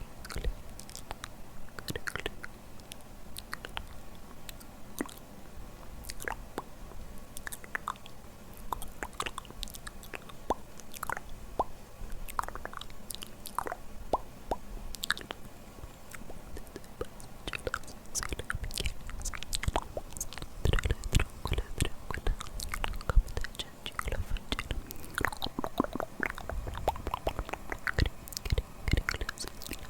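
Close-miked ASMR mouth sounds: wet clicks and smacks of tongue and lips, one after another, getting busier and louder in the last third.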